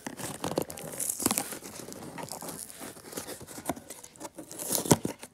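Clear plastic packing tape being peeled and ripped off a cardboard box, crinkling and tearing in irregular bursts, with the sharpest rips about a second in and near the end.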